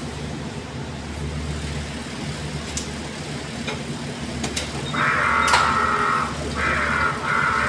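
Electric warehouse forklift running under a steady low hum, with a few sharp clicks. About five seconds in, a loud high electric whine from the truck starts, breaks off briefly and resumes.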